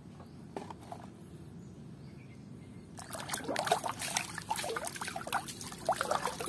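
Water splashing and sloshing in a plastic basin as a hand swishes a plastic toy through it, starting about three seconds in, with quick irregular splashes and drips.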